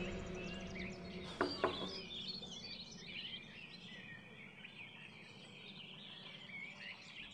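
Small birds chirping and twittering steadily in the background. There are two short, sharp knocks close together about one and a half seconds in.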